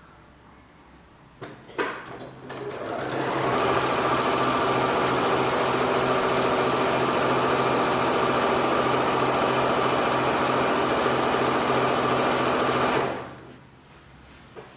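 Electric sewing machine stitching through quilt fabric at a steady fast speed. After a couple of clicks it speeds up over about a second, runs evenly for about ten seconds, then winds down and stops.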